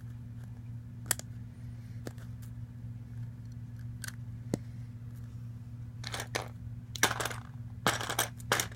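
Plastic Lego bricks clicking as they are handled and pressed together: a few single clicks, then quicker clicking and rustling near the end, over a steady low hum.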